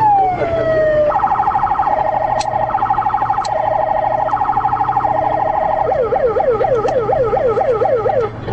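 Police car siren sounding in a chase, switching modes: a slow rising and falling wail, then about a second in a rapid pulsing warble, and a couple of seconds before the end a quick up-and-down yelp.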